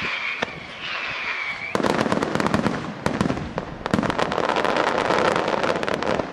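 Aerial firework shells bursting in a fireworks display. For the first second and a half a hiss carries a high whistle that falls slightly; then, just under two seconds in, a dense, fast crackle of many small sharp reports sets in and keeps going as the stars break across the sky.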